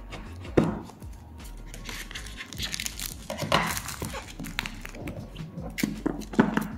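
A smartphone's cardboard retail box being handled and opened, with cardboard and paper rustling and crinkling. Sharp knocks of the box come about half a second in and again near the end.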